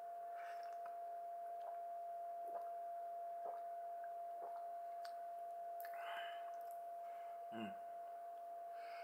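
Quiet sipping and breathing of a man drinking a whisky-and-soda highball from a plastic cup: soft breaths out through the nose, and a short low falling 'mm' about seven and a half seconds in. Under it runs a faint steady high tone, with a few soft ticks about a second apart early on.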